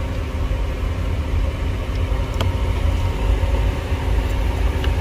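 Steady low drone of the Lexus LS430's electric radiator fan running constantly with the ignition dead, a symptom of the water-caused electrical fault. A couple of faint clicks come through, about halfway and near the end.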